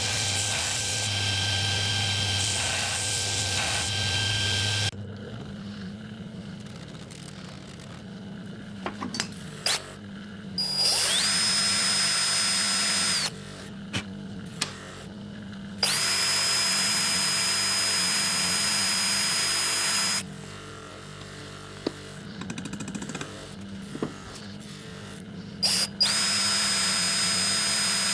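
Small electric power tool running in three bursts of a few seconds each. Each burst spins up quickly to a steady high whine, and there are clicks and handling knocks in the pauses. A different steady machine noise runs at the start and stops about five seconds in.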